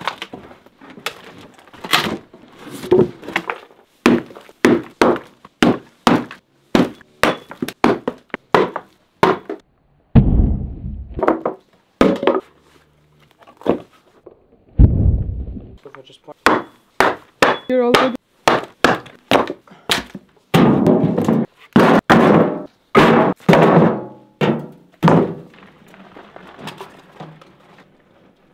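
Old wooden boards being knocked loose, pried off and thrown down: a long, uneven run of sharp knocks, thunks and wood clattering, with two heavier, deeper thuds about ten and fifteen seconds in.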